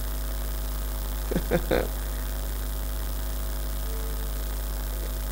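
Steady electrical mains hum in the audio chain, with a few brief faint sounds about a second and a half in.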